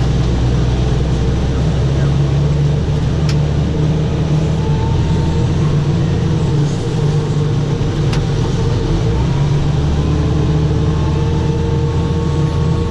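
Tractor engine running steadily, a low drone with a couple of faint clicks.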